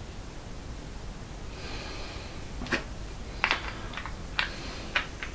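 Small metal parts of a woodturning chuck being handled: a brief rustle, then a run of six or seven sharp clicks and light knocks over the last couple of seconds, some with a short metallic ring.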